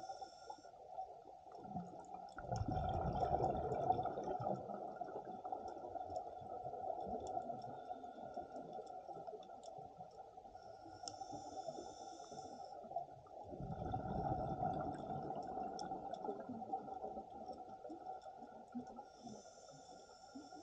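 Scuba regulator breathing underwater. A hissing inhale comes near the start, then a rush of exhaled bubbles a couple of seconds in, another inhale and bubble exhale around the middle, and a third inhale near the end. Faint crackling clicks and a steady hum run underneath.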